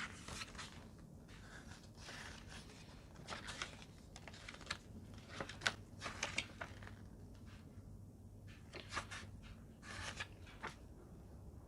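Pages of a paper user manual being flipped and handled: faint, irregular rustles and light clicks.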